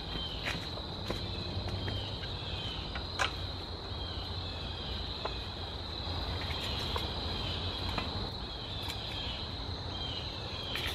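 Insects trilling steadily at a high pitch, with a short falling chirp repeating about once a second and a few scattered clicks.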